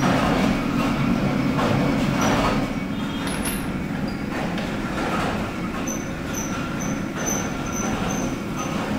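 Factory machinery running, a steady low rumble with a rhythmic clatter a little more than once a second that eases off about three seconds in. Short high-pitched chirps repeat through the second half.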